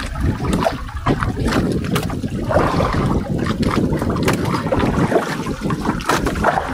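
Handline fishing gear being handled on a small wooden outrigger boat: scattered clicks and knocks of line, spool and hull, over a steady low rumble.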